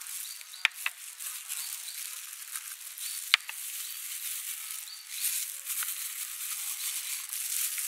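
Dry sugar and salt pouring onto grated fruit in a plastic bowl, a grainy hiss that grows louder in the second half. Two sharp taps come about a second in and again about three seconds later, with faint high chirps in the background.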